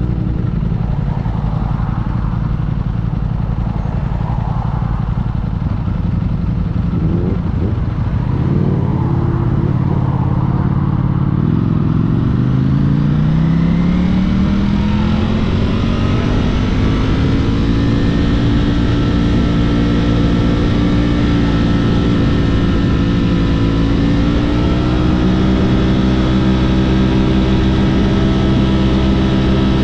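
Sport motorcycle engine heard from the rider's seat, running steadily, then rising in pitch as it accelerates about twelve seconds in and holding a steady higher note at speed, with wind noise.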